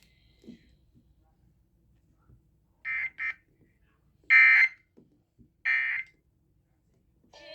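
Short high-pitched electronic alert beeps: a quick double beep, then two longer beeps about a second and a half apart.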